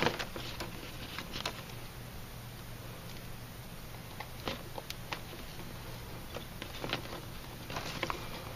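Cat 5e cable being pushed by hand through a drilled hole in a wooden top plate: light rustling and scraping with scattered small clicks, over a faint steady low hum.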